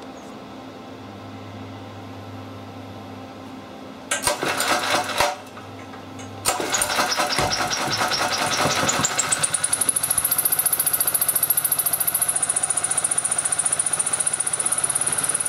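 Small single-cylinder OHV generator engine, fuelled on hydrogen, being started. About four seconds in it bursts into life for about a second and stops, then catches again a second later and speeds up to a steady run with a high whine over it.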